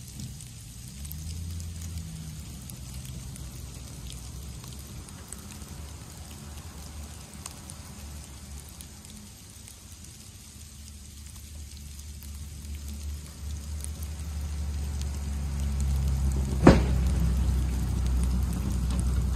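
Plow-equipped pickup truck's engine running and growing louder as the truck drives closer, over a steady patter of sleet. A single sharp knock about three-quarters of the way through.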